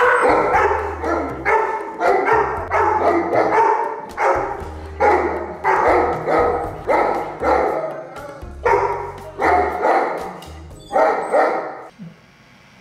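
Dogs barking repeatedly at the glass front door, one or two loud barks a second, stopping near the end, over background music with a steady bass line.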